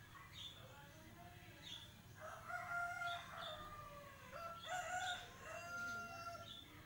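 A rooster crowing twice, each crow a long drawn-out call, with short high chirps from a songbird between and over them.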